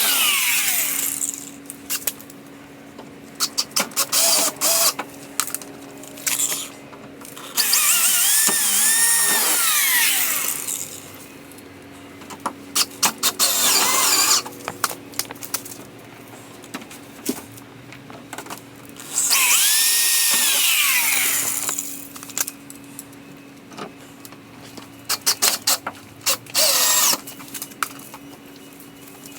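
Power drill drilling holes to mount a rear wing: three long runs where the motor whines up to speed and winds back down, with many short quick trigger blips between them. A steady low hum sits underneath.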